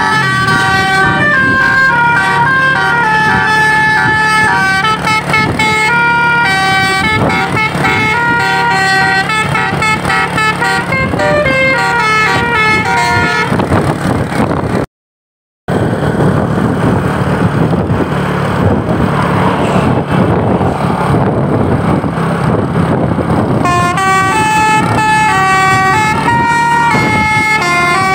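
A tour bus's multi-tone telolet horn playing a quick, stepping melody over the hum of its diesel engine. Partway through the horn stops and there is only engine and road noise from the bus, then the horn melody starts again near the end.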